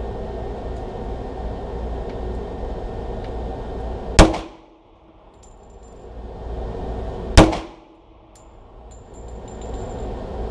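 Two handgun shots about three seconds apart, each a sharp crack with a short echo off the walls of an indoor shooting range, over a steady low rumble.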